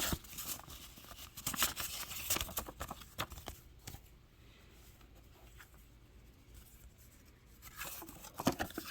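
Paper rustling and crinkling as old greeting cards and envelopes are handled, in quick bursts of crackle during the first few seconds and again near the end, with a quieter stretch between.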